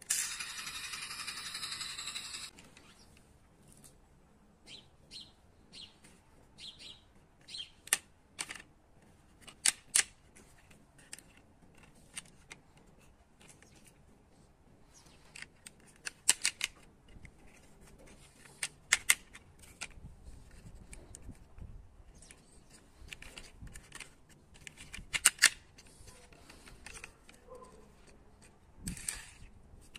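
Sharp plastic clicks and taps from small toy vehicles being handled and turned in the hands, scattered irregularly with some in quick pairs. A loud steady high-pitched noise runs for the first couple of seconds and then cuts off suddenly.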